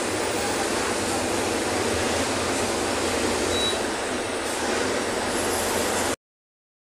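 Steady engine and road noise inside a moving city bus. The sound cuts out completely for under a second near the end.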